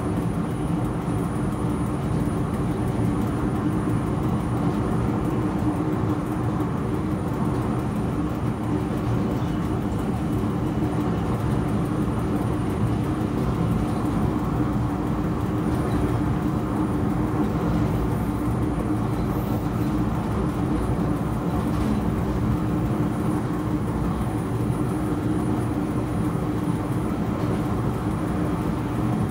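SLM Re 420 (Re 4/4 II) electric locomotive running along the line, heard from its cab: a steady hum over the even rolling noise of wheels on rail.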